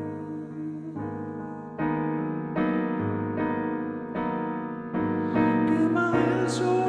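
Piano chords played slowly in a quiet ballad, a new chord struck about once a second and left to ring. Near the end a man's voice comes in on a held, wavering note.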